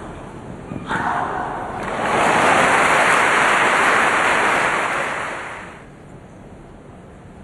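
Tennis crowd applauding and cheering as a point ends. It breaks out about a second in, swells, and dies away near six seconds.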